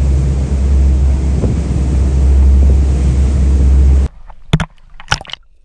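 Motorboat engine running under way, with wind buffeting the microphone and water rushing past the hull. It cuts off abruptly about four seconds in, followed by two short sharp clicks.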